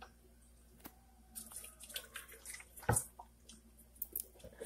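Hands rubbing and turning a whole raw chicken in a bowl of water, making faint, scattered wet handling sounds, with one sharper knock or splash about three seconds in.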